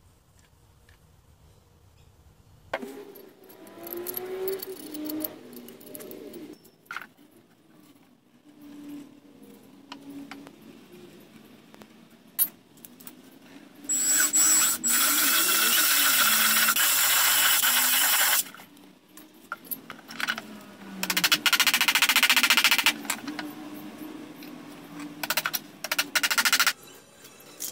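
AEG cordless drill running into pallet timber in two long spells, the first about four seconds, the second about two, with scattered knocks from hand tools before and after.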